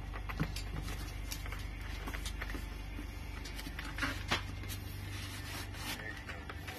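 Cardboard gift box being handled and its lid lifted off, giving scattered light taps and rustles, the loudest pair about four seconds in, over a steady low hum.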